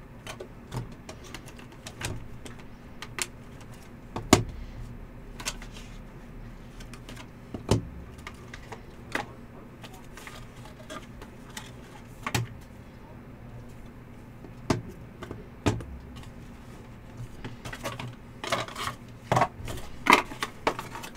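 Hands handling a cardboard hobby box and plastic-cased trading cards: scattered light clicks and taps as the cases are lifted out and set down, coming faster near the end, over a low steady electrical hum.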